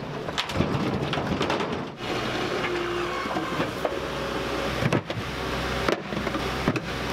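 A skid steer loader's engine running steadily, with repeated knocks and clatter of broken concrete block and debris being dug out, thrown and dropped.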